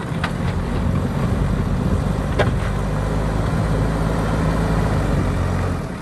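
Diesel engine of a backhoe loader running steadily under load as its front bucket pushes earth, with a couple of faint knocks.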